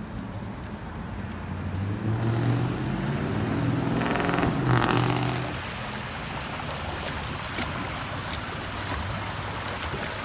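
A motor vehicle's engine passing close by, swelling to its loudest about halfway through and then fading, followed by the steady rush of shallow water flowing over a stone play area.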